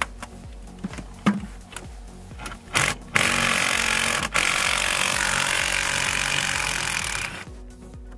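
A few light clicks of parts being handled, then an impact wrench runs loudly for about four seconds, with a brief break, undoing the 8 mm bolt that holds the exhaust camshaft position sensor. Background music plays underneath.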